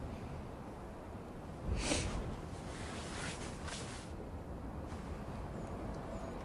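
Quiet outdoor film ambience: a steady wind-like hiss, with a few short soft noises about two seconds in and again between three and four seconds in.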